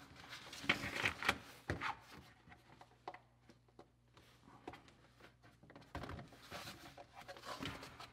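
Thin, flimsy plastic parts of a bucket mouse trap being handled and fitted together: the cat-face cover's tabs worked into the holes in the rim. Short bouts of plastic scraping and rubbing near the start and again near the end, with a few light clicks between.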